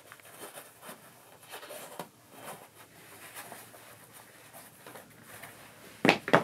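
Shoelaces on a Nike Dunk High being pulled and tied: soft rubbing and rustling of the laces, then two louder sharp knocks near the end.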